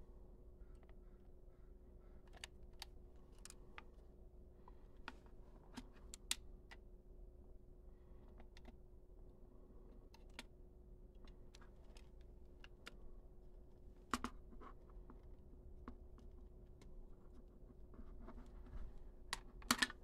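Scattered light clicks and taps of a small screwdriver and the plastic case of a Casio fx-9750GIII graphing calculator being worked on and opened up, with louder clicks about 14 seconds in and just before the end.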